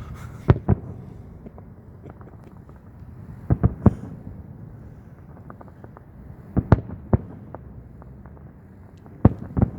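Aerial fireworks shells bursting: sharp bangs in groups of two to four, a group about every three seconds.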